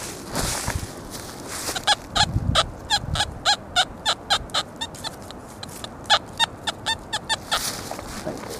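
XP Deus metal detector giving a string of short beeps, two to three a second, as the coil is swept back and forth over a faint target; in full-tones mode the pitch shifts slightly from beep to beep.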